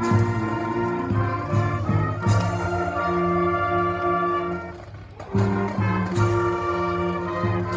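Brass band music: sustained brass chords with several loud accented hits and a brief dip in volume a little past the middle.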